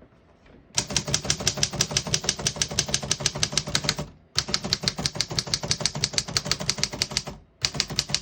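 Keys of a 1926 Underwood three-bank portable typewriter struck in a fast, even run, about seven strikes a second, typing out the lowercase letters. The run starts about a second in and breaks off twice, briefly, before going on.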